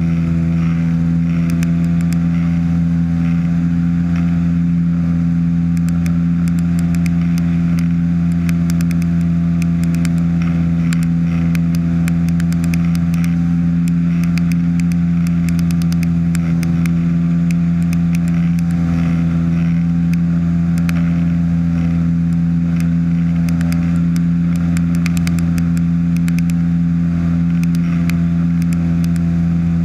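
Ultralight trike's engine and pusher propeller running at steady cruise power in flight: a constant loud drone made of several steady tones, with a light crackle over it.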